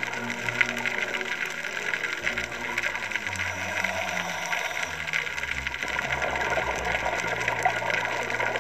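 Soft background music of low held notes that change pitch every half second or so, over a steady crackling hiss.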